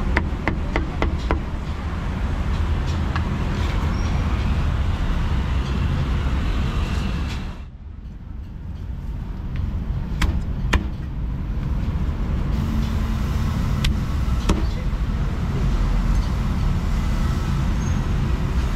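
Steady low rumble of road traffic, with a cleaver chopping on a thick wooden chopping block: a quick run of chops at the start, then a few single chops later on.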